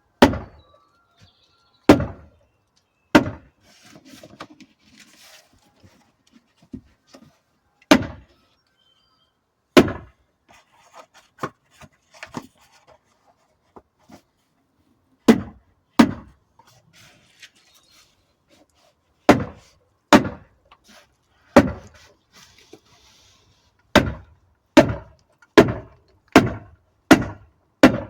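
Hammering: about sixteen sharp single blows, a few seconds apart at first, then a steady run of roughly one blow every 0.8 s near the end.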